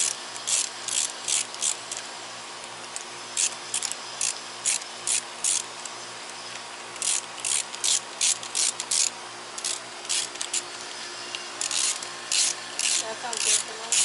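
Hand ratchet wrench worked in quick back-and-forth strokes, a short burst of clicking on each return stroke, about three a second, in runs of four to seven with brief pauses between.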